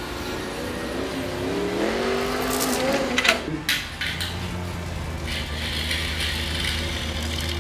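Race-car engine sound rising in pitch over the first three seconds, a few sharp clacks a little after three seconds in, then a steady low engine hum.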